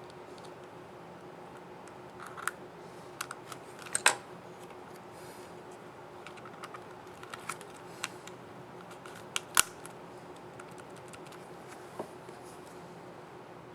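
Small sharp plastic clicks from a laptop keycap and its scissor mechanism being handled and fitted back onto the keyboard. The clicks are scattered and irregular, loudest about four seconds in and again near ten seconds, over a faint steady hum.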